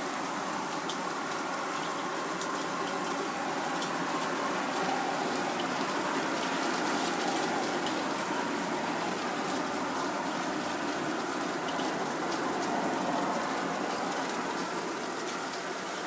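Hail and sleet coming down hard: a steady rush with many sharp ticks of hailstones striking.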